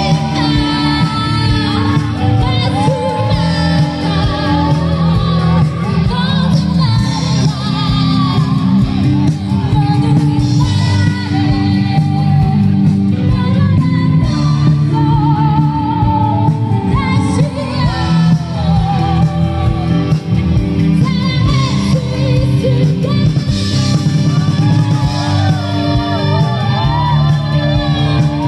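Live band playing a pop song through a stage sound system: a female lead singer over electric guitars and bass, continuous and loud.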